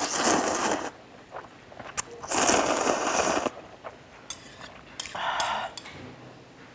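Noodles being slurped from a small bowl of broth: two long, loud slurps of about a second each, a light click between them, and a shorter, softer slurp near the end.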